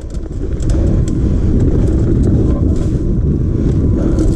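Wind rushing over a bike-mounted camera's microphone while a mountain bike rattles over a rough trail, with scattered clicks and knocks from the bike. The noise builds up over the first second, then holds steady.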